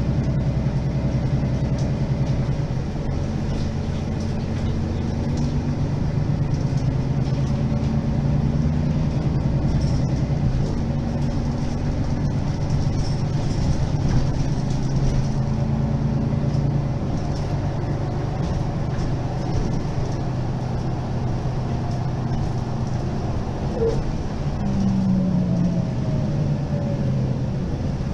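Diesel engine of a standing Mercedes-Benz Citaro G articulated city bus idling steadily.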